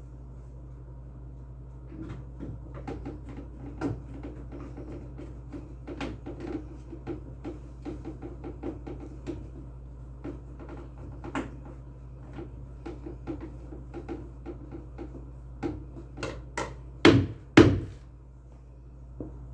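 Screws being driven into a Hitachi washing machine with a screwdriver: a long run of small clicks and scrapes, then two loud knocks near the end, over a steady low hum.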